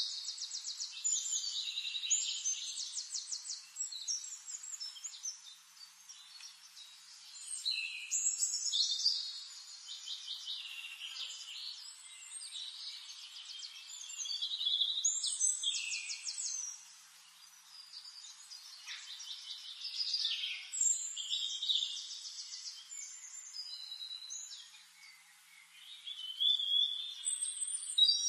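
Birds singing: rapid high trills and short chirps, swelling into louder phrases every six or seven seconds with quieter chirping between.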